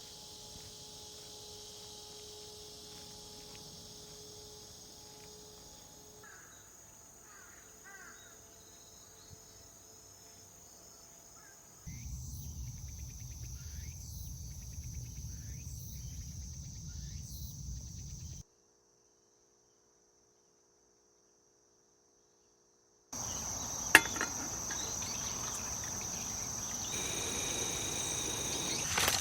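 Crickets chirping in a steady, high continuous trill across several spliced takes. There are a few seconds of dead silence past the middle, and a single sharp click shortly after the sound returns.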